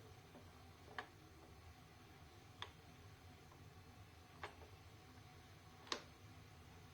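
Near silence with a faint low hum, broken by four sharp light clicks about a second and a half apart, the last one the loudest.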